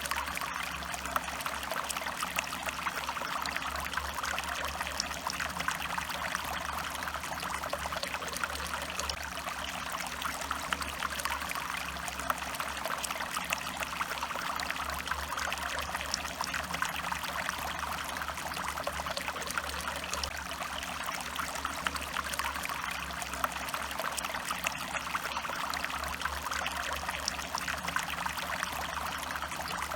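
A stream flowing and trickling steadily, with fine splashing and burbling water.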